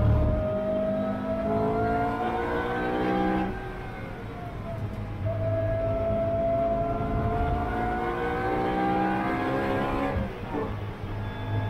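A track car's engine heard from inside the cockpit under full acceleration: the revs climb steadily for about three seconds and ease off, then climb again in a long pull of about five seconds before dropping sharply near the end.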